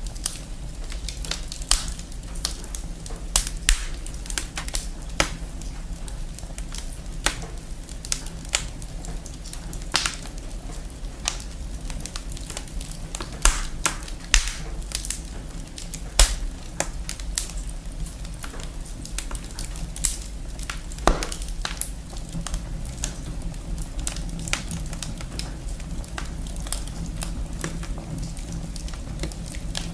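Wood fire crackling in a fireplace: irregular sharp snaps and pops over a steady low rumble.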